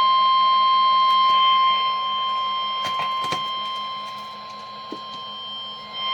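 Weather radio sounding the Environment Canada 1050 Hz warning alarm tone, one steady high tone heard through the radio's speaker. The level dips after about two seconds and comes back up just before the end, with a couple of clicks in the middle. The tone signals that a severe weather warning is about to be read.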